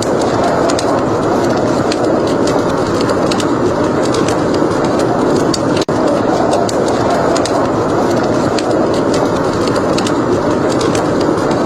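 Wood fire crackling: scattered sharp pops and crackles over a steady, dense rushing noise, with a brief break in the sound about six seconds in.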